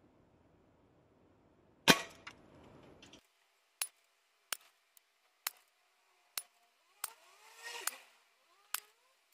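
A single sharp crack of a shot from a Brocock Sniper PCP air rifle at card targets about two seconds in, the loudest sound, ringing for about a second. After it come seven short sharp clicks spaced about a second apart.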